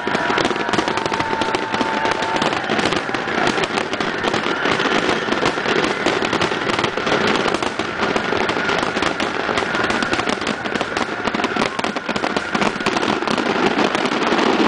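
Fireworks grand finale: a rapid, continuous barrage of aerial shell bursts and crackle, the reports packed too close together to count and never pausing.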